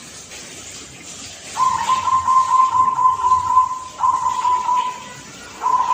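Young zebra dove (perkutut) cooing: a long wavering coo begins about one and a half seconds in, a shorter one follows, and another starts near the end, all on about the same pitch.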